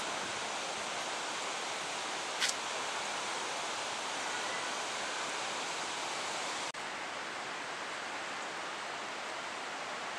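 Steady rushing outdoor hiss with no clear source, with one brief sharp high sound about two and a half seconds in. Near seven seconds it cuts off for an instant at an edit, then goes on slightly duller.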